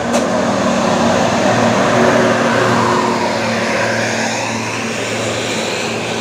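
Tour bus's diesel engine running under power as the bus drives past, a loud steady low drone with rushing noise, loudest about two seconds in.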